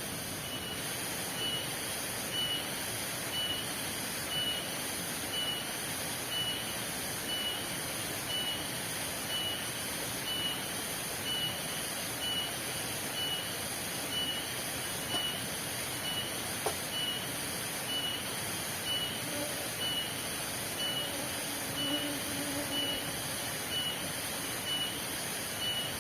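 Steady rain hiss in the forest, with a high insect-like drone pulsing overhead and a short high-pitched beep-like note repeating about once a second.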